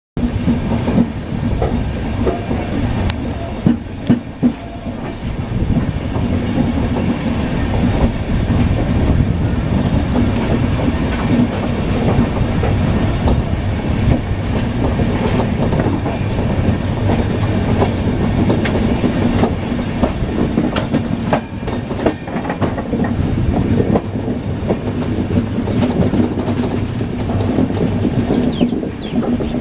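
Indian Railways superfast express passenger train running by, its coach wheels rumbling steadily and clacking sharply and often over the rail joints.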